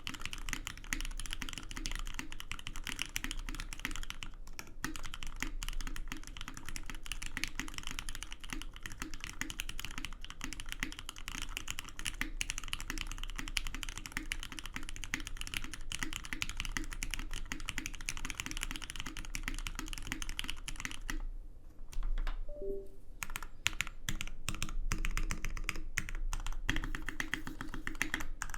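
Fast continuous typing on a Seulgi V2 custom mechanical keyboard with Krytox-lubed Cherry MX Black linear switches on an aluminium plate and SAU-profile keycaps. The keystrokes are dense and even, break off briefly a little past two thirds of the way through, then resume somewhat louder.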